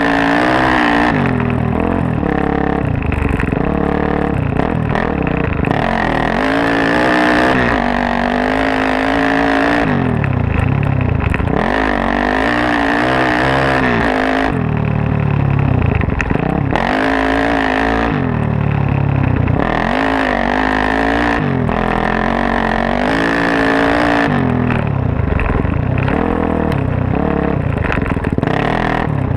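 Suzuki DR-Z400S four-stroke single-cylinder dirt bike engine, big-bored to 440 with a full Yoshimura off-road exhaust, pulling hard under throttle off road. Its pitch climbs and drops back every two or three seconds as the rider opens and closes the throttle and shifts.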